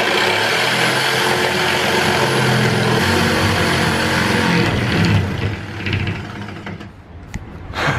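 Electric jigsaw cutting through a large sheet of wood, the blade running steadily for about five seconds before winding down, with one short burst of the saw near the end.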